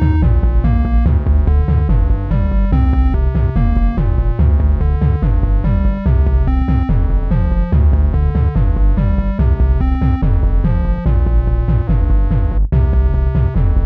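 Instrumental background music: synthesizer and keyboard notes struck in a quick, even run over a heavy, steady bass.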